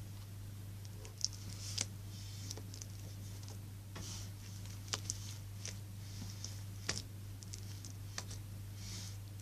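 Slime giving off scattered small clicks and crackling pops over a steady low hum.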